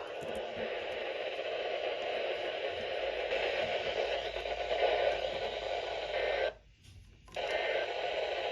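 Radio static: a steady hiss from a receiver between broadcasts, which cuts out briefly about two-thirds of the way through and then returns.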